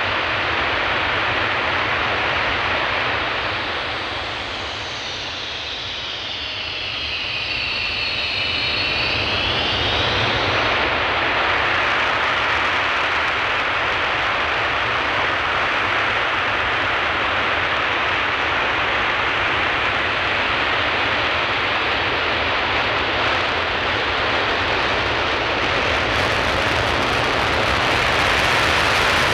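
Panavia Tornado jet engines running loud and steady. Between about four and ten seconds in, a high whine slides down in pitch and back up.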